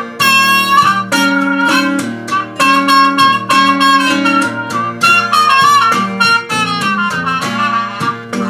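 Trumpet playing a blues melody of held and sliding notes over steady strumming of an open-tuned acoustic guitar.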